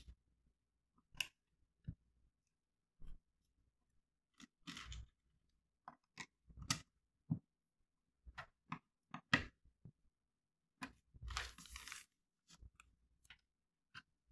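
Plastic Lego bricks clicking as they are pressed and snapped onto a small car chassis: scattered sharp clicks, with two longer rubbing, crunching sounds, one about five seconds in and one past the middle.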